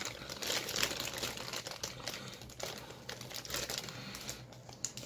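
Plastic packaging crinkling in irregular small crackles as a figure's small parts are unwrapped by hand.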